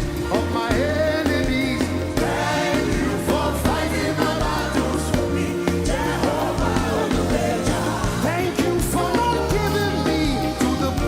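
Live gospel praise-and-worship music: singing over a full band with a steady bass line and drums.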